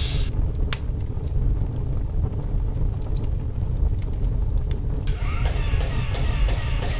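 Low steady rumble of a burning-fire sound effect, with a few sharp clicks. About five seconds in, a busier sound with quick regular ticks joins it.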